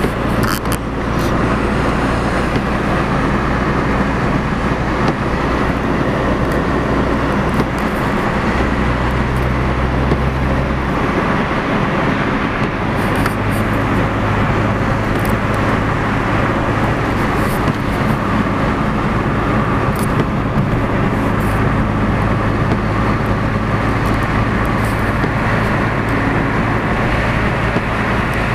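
Steady road and engine noise of a moving car, heard from inside the cabin. The low engine drone changes pitch about eleven seconds in.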